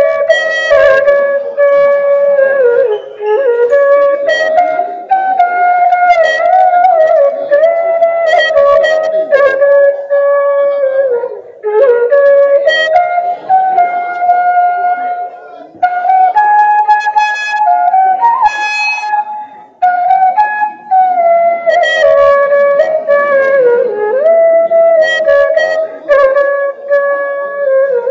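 Side-blown flute played solo into a microphone and heard through a PA loudspeaker: a melody of held notes joined by slides and ornaments, broken by a few short pauses for breath.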